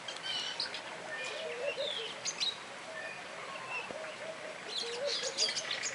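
Several birds calling: short high chirps and whistled glides scattered through, with lower wavering notes in between, over a steady background hiss.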